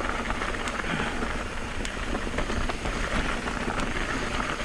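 Mountain bike rolling over a loose, rocky dirt trail: a steady gritty crunch of tyres on gravel and small rocks, with scattered sharp clicks and rattles from stones and the bike.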